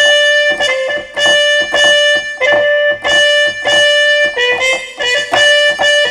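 Synthetic trumpet patch on a Roland MV-8800 sampler played from the keys in mono mode: a run of short notes, about two a second, only one note sounding at a time and each cut off by the next, so no chords come through.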